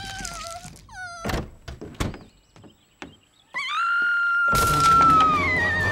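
Cartoon soundtrack: a wavering cry, then two sharp thunks about a second and a half and two seconds in. After a short quiet gap, a long held note starts and music comes in loudly, its melody sliding downward near the end.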